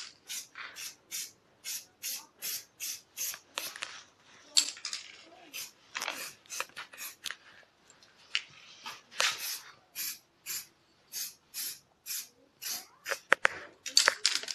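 Aerosol can of spray paint being sprayed in short, rapid bursts of hiss, about three a second, with a few longer sprays in between. A couple of sharp clicks near the end.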